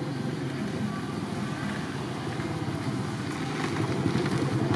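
A small engine idling steadily with an even, low pulsing rumble.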